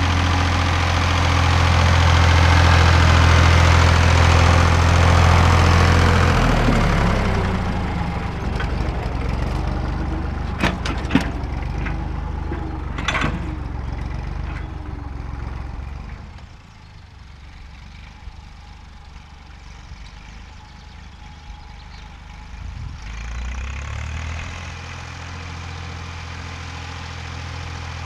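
Fordson Dexta's three-cylinder engine running steadily as the tractor pulls a field roller past, loud at first and then fading away over the next ten seconds. A few sharp clicks come through partway in, and the engine is heard again, fainter, near the end.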